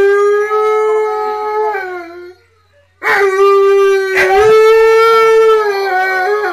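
Alaskan malamute howling in long, steady, drawn-out notes. One howl fades out about two seconds in, and a second begins a second later and carries on.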